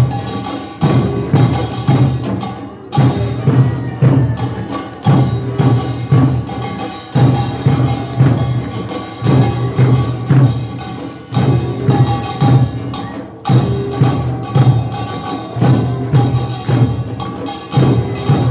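Korean nongak percussion band playing: clattering small gongs over drum strokes that land about once a second, with a ringing gong tone held underneath.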